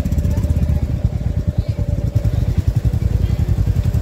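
Motorcycle engine running at low speed, heard from the rider's seat, with a dense, steady low pulsing.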